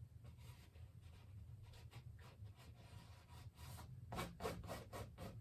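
Oil paint being worked onto canvas: a series of faint scraping strokes, coming thicker near the end, over a low steady room hum.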